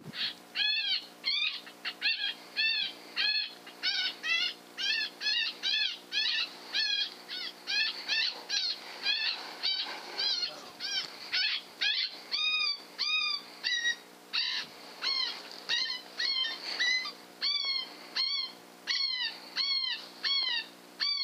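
Rapidly repeated high, arched squealing cries, about two to three a second at a steady level, typical of an electronic predator call playing an animal distress sound to lure a coyote.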